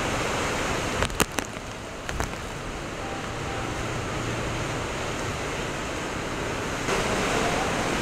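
Typhoon wind and torrential rain making a steady, dense rushing noise. There are a few sharp knocks about a second in and two more around two seconds in. The noise gets a little louder near the end.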